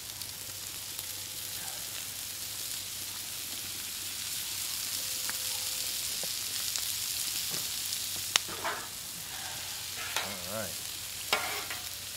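Diced potatoes and vegetables sizzling in oil on a flat-top griddle, the sizzle growing a little louder as more oil is squirted on. From about two-thirds of the way through, metal spatulas clack and scrape across the griddle as the food is turned.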